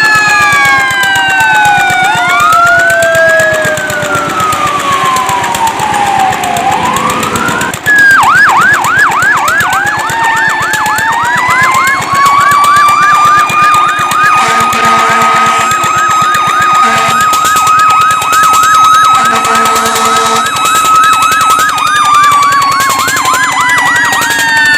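Fire truck sirens sounding together: slow rising and falling wails, then a fast yelp cycling about three times a second under a held high tone. Two long horn blasts cut in near the middle and again a few seconds later.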